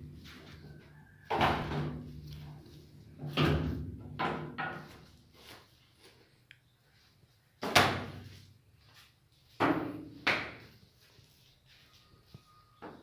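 Hand-lever rubber slipper cutting press being worked: a series of about six heavy clunks with short ringing tails at irregular intervals, as the lever comes down and the die cuts through the rubber sheet.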